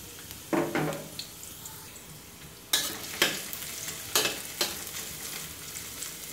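Chopped garlic sizzling in hot oil in a stainless steel wok, frying until fragrant, while a metal spatula stirs it, scraping and clinking against the wok a few times: about half a second in, around three seconds and around four seconds.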